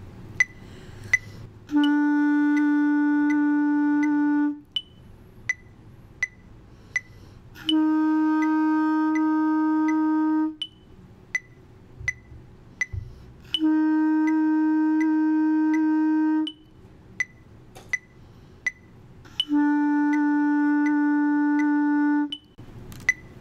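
Clarinet playing four long held notes, each lasting about three seconds with rests between. The notes are written E, F, F, E, the first and last slightly lower in pitch, with the F fingered by the thumb alone. A metronome ticks steadily at about 80 beats a minute throughout.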